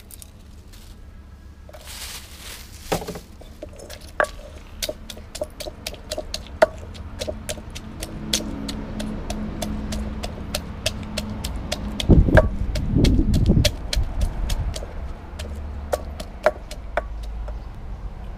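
Steady, rhythmic hard knocks, about two to three a second, from kitchen prep for a basil stir-fry. Around twelve seconds in a louder low rumble rises under them for a couple of seconds.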